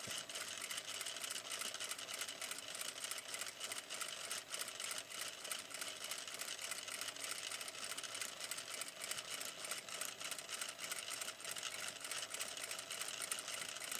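Sewing machine running steadily, stitching through fabric with a rapid, even clatter of needle strokes.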